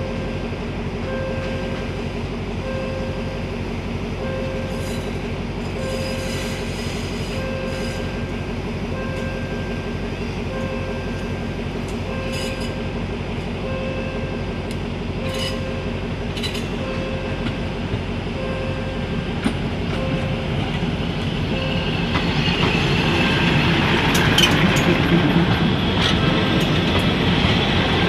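Level-crossing warning bell ringing in a steady repeating pattern, about one ring a second, as a diesel-hauled passenger train approaches. From about 20 seconds in, the locomotive and the wheels on the rails grow louder as the train passes close by.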